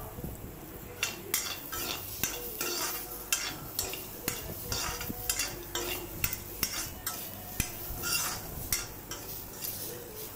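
Metal ladle scraping and clinking against a metal kadai as peanuts, onion and green chillies are stir-fried, in repeated strokes about two a second, over the sizzle of the frying.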